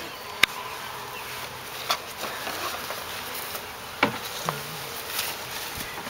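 A small honeybee colony, just uncovered, buzzing steadily; the beekeeper takes the noise for the bees being stirred up and a little angry. A few sharp clicks sound over the buzz, the loudest about half a second in.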